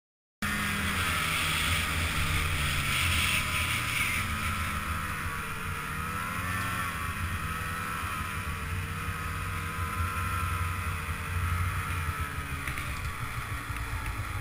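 Snowmobile engine running steadily, its pitch wavering a little, with wind noise on the microphone; it starts abruptly about half a second in.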